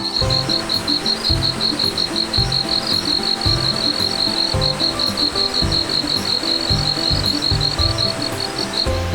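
An insect chirping steadily in quick, evenly spaced high pulses, several a second, over background music.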